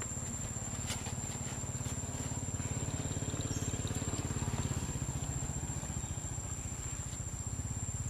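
A small engine running steadily at idle, a low, evenly pulsed sound that swells slightly in the middle, with a steady high-pitched tone above it and a single click about a second in.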